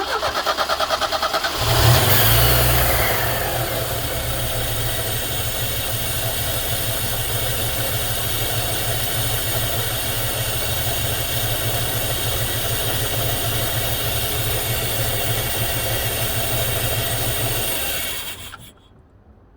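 Hot Mercedes-Benz M102 four-cylinder engine cranked by the starter with an even rhythmic chug for under two seconds, catching with a brief rev about two seconds in, then idling steadily until it is switched off near the end. It is a hot start of an engine said to start hard when hot.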